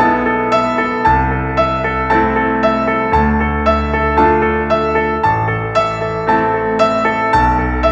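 Piano music: a repeating pattern of struck notes about twice a second over a bass line that changes about every two seconds.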